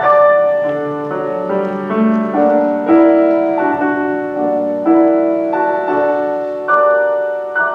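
Piano playing alone: a slow series of chords, each struck and left to ring and fade before the next.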